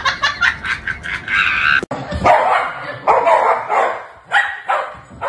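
Dogs barking in short, separate barks, about five of them, starting about two seconds in. They are barking at dogs shown on a television. Before that there is a quick run of short clicks.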